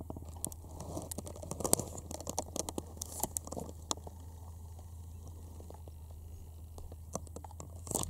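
Camera handling noise while the shot is reframed: irregular crunching clicks and crackles, thick for the first few seconds and again in a short cluster near the end, over a steady low hum.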